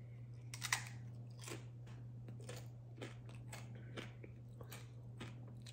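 A person bites into a One Chip Challenge tortilla chip with one loud crunch about a second in, then chews it, with crunches roughly every half second. A steady low hum runs underneath.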